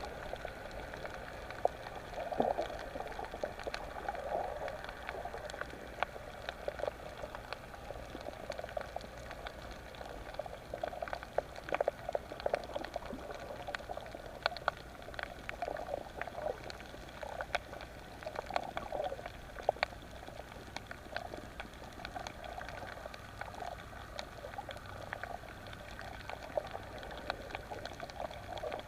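Underwater bubbling and gurgling with many scattered sharp clicks, muffled as heard through a submerged camera.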